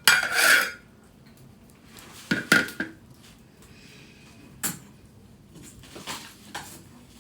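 A few separate clattering knocks with a short ring in each. The first two, at the start and about two and a half seconds in, are the loudest; softer clicks follow.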